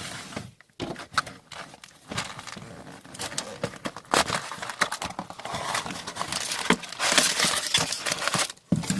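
Plastic wrapping crinkling and tearing, with scrapes and taps of cardboard, as a sealed box of hockey trading cards is unwrapped and opened. The crackling is irregular and grows louder in the second half.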